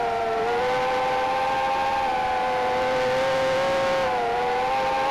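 Micro quadcopter's motors whining steadily in flight: one high hum with overtones, its pitch dipping briefly twice as the motor speed eases.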